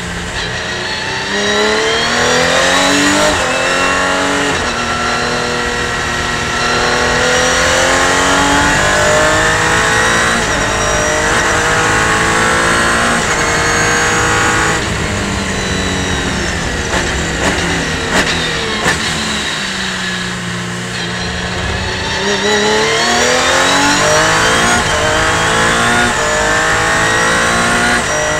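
Revolution 500 race car engine heard from inside the cockpit, accelerating hard through several quick upshifts, its pitch climbing and dropping back at each shift. About halfway through it slows through downshifts with a few sharp clicks, then accelerates through the gears again.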